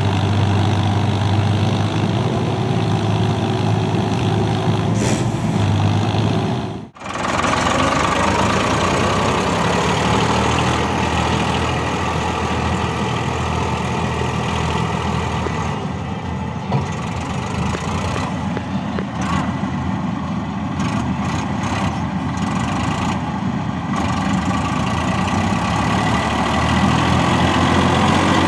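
Diesel tractor engines running steadily under load while pulling through mud: an Indo Farm 3048 hauling a loaded trailer, then, after a brief dropout, a Massey Ferguson 241.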